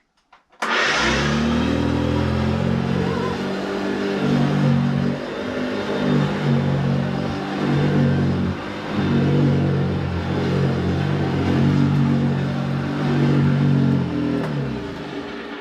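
Vintage Hoover vacuum cleaner switched on about half a second in, running loud and a little uneven, then switched off near the end and running down. It doesn't sound great: a horrible noise that the owner fears comes from something having got into the motor.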